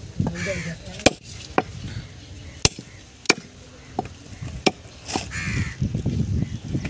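A heavy cleaver chopping goat meat on a wooden log chopping block: about seven sharp chops at irregular intervals. Two harsh calls are heard in the background, about half a second and five seconds in.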